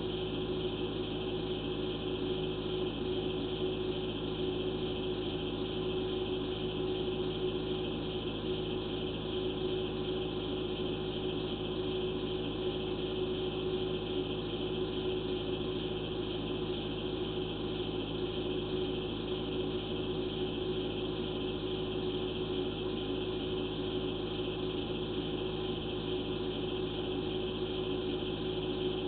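A steady, unchanging hum with several fixed tones.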